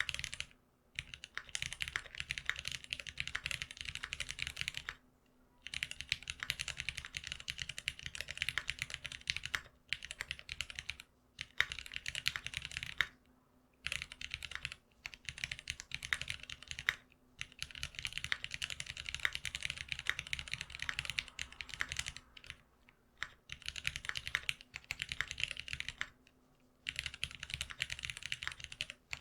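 Fast typing on a GeonWorks F1-8X custom mechanical keyboard built with lubed Cherry black linear switches, a rapid patter of keystrokes in runs of a few seconds broken by brief pauses. A faint steady hum lies underneath.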